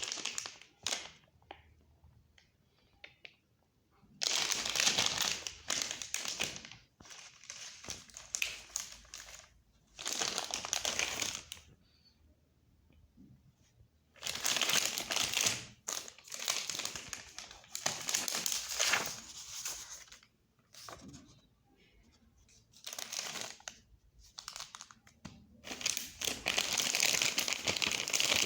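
Packaging of a book parcel crinkling and being torn open by hand, in irregular bursts of rustling with short pauses between them. The first few seconds hold only a few faint clicks and rustles before the handling gets louder.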